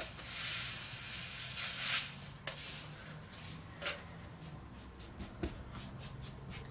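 Dry play sand being scooped from its bag with a plastic cup and poured into a hollow steel tube leg of an anvil stand: a hiss of running sand near the start and again about two seconds in, then a few light clicks and taps as loose grains are moved about on the steel plate.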